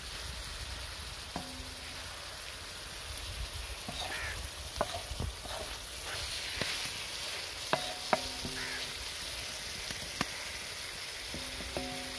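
Marinated chicken pieces with onion, garlic and ginger sizzling on a large iron tawa while a wooden spatula stirs them. The spatula knocks and scrapes on the metal now and then, most sharply around five and eight seconds in.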